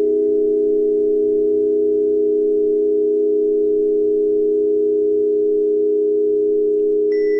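Steady pure 417 Hz solfeggio tone, layered with a few close pitches into an even, unbroken hum. Near the end, a high ringing tone joins and holds.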